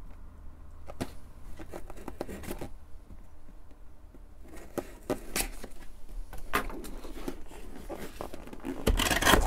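Scissors slitting the packing tape on a cardboard box: small scrapes and clicks of the blades on tape and card. Near the end comes a louder, brief tearing rasp as the tape gives and the box is opened.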